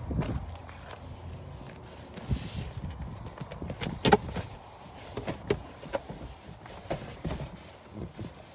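Scattered knocks, clicks and rustling from handling a car's rear bench seat as its bottom cushion is pulled up, with the sharpest knock about four seconds in.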